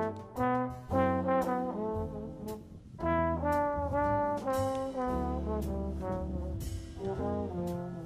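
Background music: a brass melody of held notes over a bass line and sharp drum hits.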